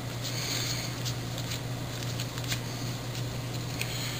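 Baseball cards flicked and slid one by one from the top of a stack to the back, a light card-stock swish about every half second to second, over a steady low hum.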